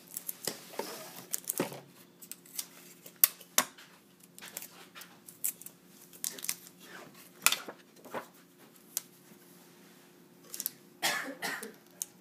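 Irregular plastic clicks, knocks and light rattles as a GoPro Hero 3 in its clear plastic housing is handled and worked loose from its suction cup mount and packaging.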